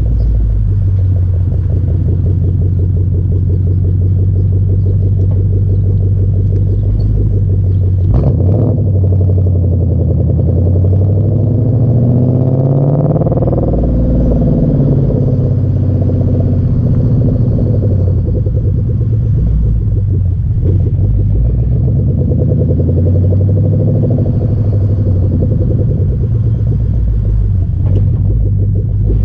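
Exhaust of a 2012 Mustang GT's 5.0 Coyote V8 through Flowmaster Outlaw axle-back mufflers, heard right at the tailpipe while driving: a steady low drone, then a rising pitch under acceleration for a few seconds before it falls away.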